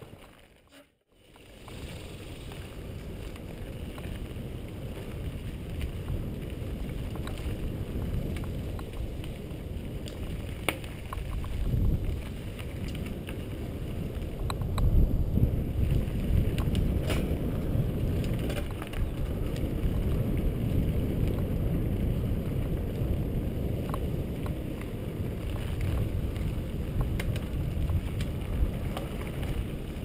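Mountain bike riding a dirt trail: steady rumble from the tyres and wind noise on the microphone, with scattered sharp clicks and rattles from the bike. The sound cuts out briefly about a second in.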